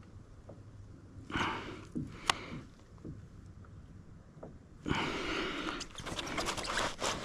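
Handling noise: a brief rustle and a sharp click in the first couple of seconds, then a steady stretch of rustling with small knocks and clicks over the last two seconds or so, as a caught redfish and a camera are handled for a photo.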